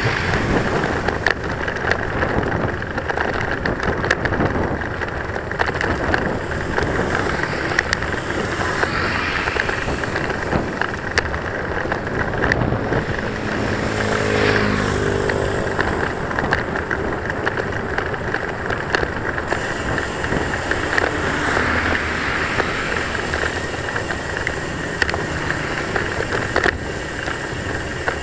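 Road traffic passing a moving bicycle, under a steady rush of wind on the microphone and frequent small clicks and rattles from the bike as it rolls over the bridge footway. About halfway through, one vehicle's engine note swells and fades as it goes by.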